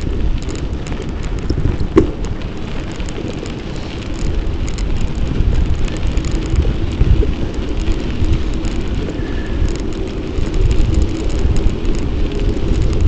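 Wind buffeting a bike-mounted camera's microphone, over the rumble and rattle of a bicycle rolling along a packed sand path, with a sharp knock about two seconds in.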